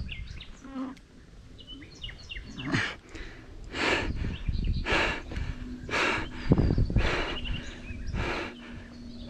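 Small birds chirping around the river, with a run of about six short rushing sounds, one roughly every second, in the second half.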